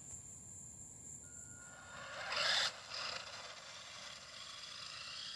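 Converted Tyco Twin Turbo Lamborghini RC car, its stock motors overdriven on a 3S lipo, whining with its tyres rasping on concrete as it accelerates away. There is a loud rushing burst about two and a half seconds in, then a steady noisy whine, over a thin high steady tone.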